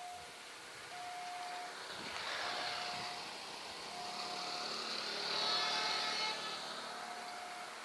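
A level-crossing warning bell sounds one repeated tone about every second and a half. Over it, a diesel-hauled passenger train crossing a steel bridge grows louder, loudest about five to six seconds in.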